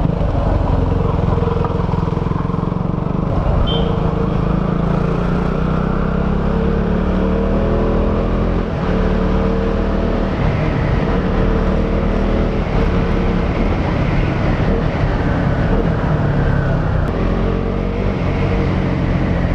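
KTM Duke 200's single-cylinder four-stroke engine on its stock exhaust while being ridden, the revs climbing and falling through the gears, with a short dip about nine seconds in.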